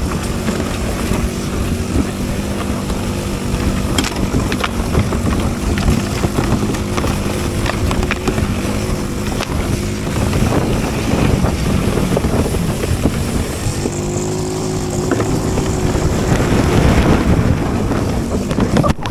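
Small engine running steadily while the vehicle is under way, with wind buffeting the microphone.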